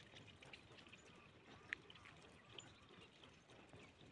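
Near silence: faint outdoor background, broken by one brief high tick about a second and a half in.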